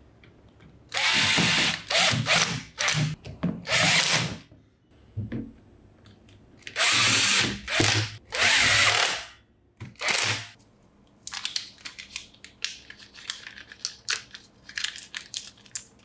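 A power tool running in short bursts with sharp starts and stops: about three seconds, then about two and a half, then a brief half-second run. Light clicks and rattles follow near the end.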